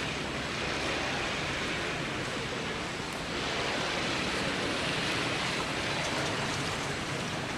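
Steady outdoor background hiss with no clear single source, a little louder from about three seconds in.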